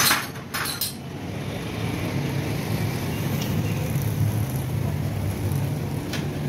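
Steady low drone of vehicle engines from road traffic, with a few sharp metallic clinks in the first second.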